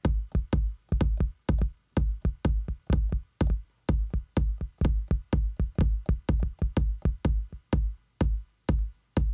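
Native Instruments Maschine playing a looping electronic drum pattern: short kick-drum and percussion hits in an even rhythm, about four a second, with a deep low end.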